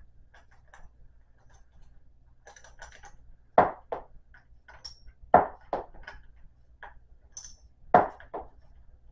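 Sharp metallic clicks and light taps of an Allen wrench and its bolts on a SvBony SV520 telescope mount as the bolts are worked out. There are three louder clicks, each followed by a softer one, with faint high pings and ticks between them.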